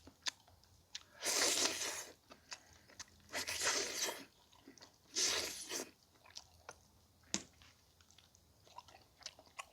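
A person eating boiled pig's trotter close to the microphone, chewing and gnawing the meat off the bone. Three longer, noisy mouth sounds come about two seconds apart, with small wet clicks between them.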